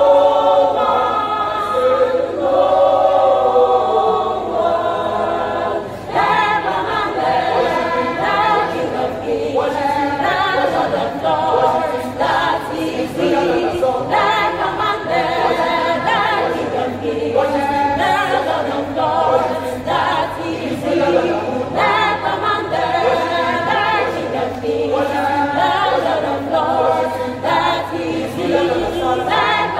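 A church choir of about 27 voices singing a gospel choral piece in parts, without speech, over a steady low hum.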